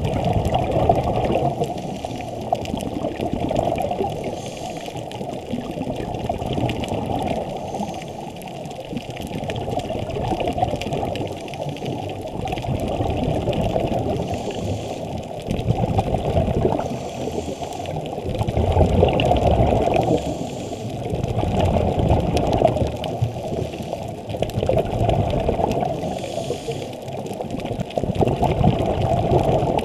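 Muffled underwater sound through a camera housing: a scuba diver's regulator breathing, with the rush and gurgle of exhaled bubbles swelling every few seconds and brief hisses of inhalation between them.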